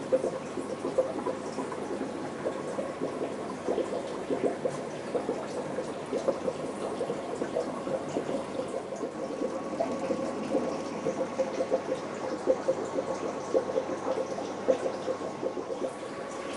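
Aquarium water bubbling and trickling continuously, with a steady hum underneath.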